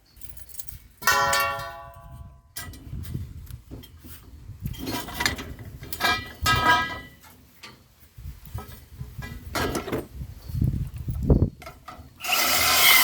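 Metal pieces clanking and ringing as they are knocked and handled. The loudest clank, about a second in, rings out with a clear tone, more ringing knocks follow, and a harsh burst of noise comes near the end.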